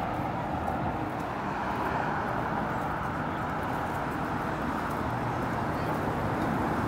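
Steady street ambience: traffic passing on a busy multi-lane city road, an even rush of noise with no single event standing out.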